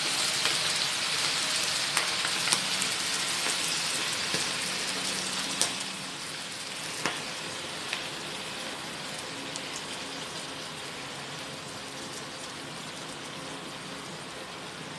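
Chicken pieces sizzling in a hot pan as evaporated milk is added; the sizzle dies down over the first several seconds and then simmers more quietly, with a few sharp clicks of a utensil against the pan.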